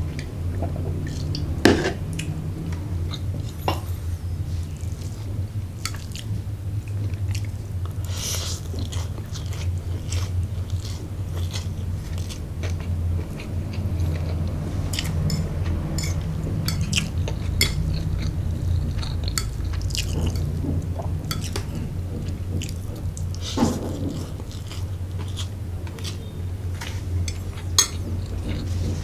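Close-up chewing of fried rice vermicelli noodles: a stream of wet mouth clicks and smacks, with a few sharper clicks, over a steady low hum.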